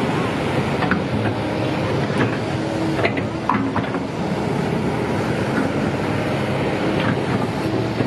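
Waves breaking on a sandy beach with wind on the microphone, and a motor running steadily behind them with a few short knocks.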